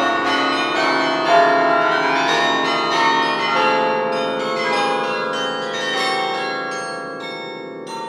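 The 72-bell Rockefeller Chapel carillon ringing a dense passage of many overlapping bell notes, played from the baton keyboard. The sound grows quieter over the last two seconds as the bells ring on.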